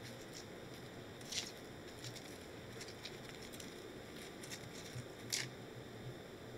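Fingers handling sprigs of fresh mint on top of desserts in glasses, making faint rustles and light ticks over a steady low hiss. Two short, louder rustles come about a second and a half in and about five seconds in.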